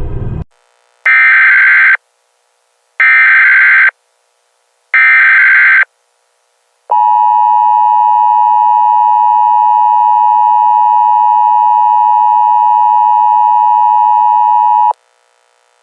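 Emergency Alert System tones: three short bursts of SAME header data, a harsh digital screech each about a second long with a second's gap between, followed by the two-tone EAS attention signal, a steady harsh dual tone held for about eight seconds that cuts off abruptly.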